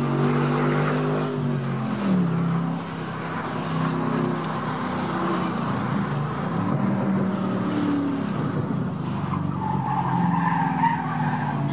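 Ford Mustang 4.6-litre V8 running with its exhaust valves open, heard from inside the cabin. The engine note holds steady, drops in pitch about two seconds in, then rises and falls.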